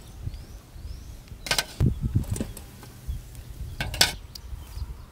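Metal cooking utensils clattering: two loud, short clatters about two and a half seconds apart, with a lighter knock between them.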